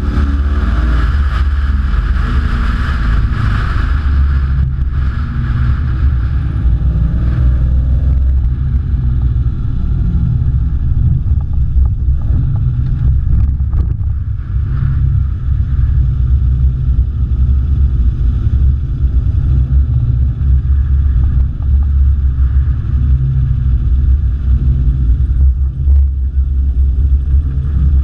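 Competition car's engine running steadily at low revs as the car slows off the track and drives at low speed, with wind and road hiss that fades away after the first few seconds.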